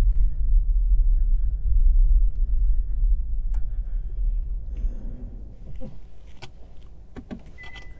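Low rumble of a car's engine and tyres on a rough gravel track, heard inside the cabin, fading away over the first half as the car slows to a stop. A few clicks and a short beep follow near the end.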